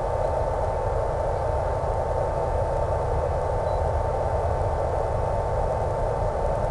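Steady, unchanging hiss with a constant high hum tone running through it: static on the audio of an analog 1.3 GHz FPV video downlink.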